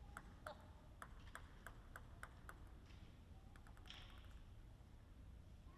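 Faint table tennis ball bounces: a string of light pings about three a second, then a quick run of small bounces about three and a half seconds in.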